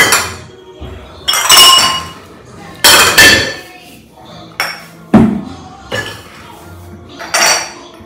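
Glass jars clinking and knocking against each other and the dishwasher rack as they are set in, about five knocks, some leaving a short glassy ring. Soft background music runs underneath.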